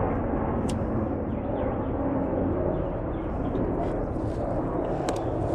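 Steady low rumble of background noise with no distinct event, and a faint click about a second in and a couple more near the end.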